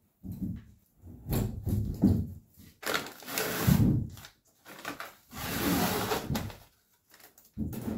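Plastic sheeting being peeled and pulled off the cured fibreglass underside of a plywood deck panel, crinkling and rustling. There are two longer peeling stretches, one about three seconds in and one about five and a half seconds in, with knocks and rustles from handling the panel before them.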